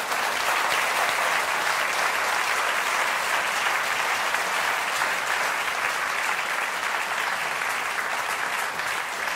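Theatre audience applauding steadily, a dense sustained clapping that eases off slightly near the end.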